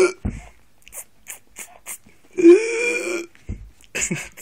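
Mock CPR on a plastic toy doll: light clicks from fingers pressing on its chest, about three a second, then a breathy vocal sound from a person lasting about a second and rising slightly in pitch, followed by a few more clicks near the end.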